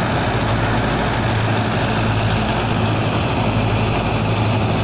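Tractor-driven wheat thresher running steadily while threshing wheat, powered by a Belarus tractor's diesel engine through a long flat belt: a loud, even machine noise over a constant low engine hum.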